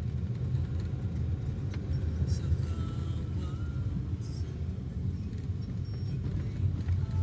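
Steady low road rumble of a moving vehicle, with faint music and a few light clicks over it.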